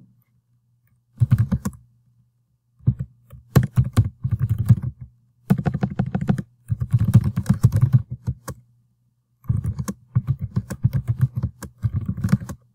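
Typing on a computer keyboard: several bursts of rapid keystrokes with short pauses between them.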